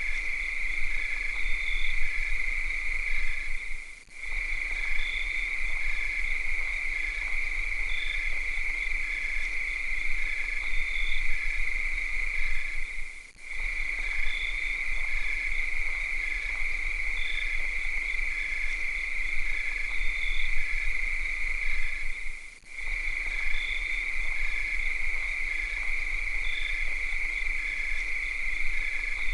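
Cicadas calling in a steady, high, continuous drone, with a fainter call pulsing evenly under it. The drone briefly dips out three times, about every nine seconds, where the recording loops.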